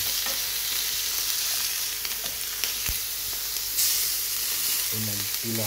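Chicken pieces sizzling on a stovetop grill pan, a steady hiss with scattered small clicks and pops. About four seconds in the sizzle briefly gets louder as a piece is lifted and turned with a metal slotted spatula.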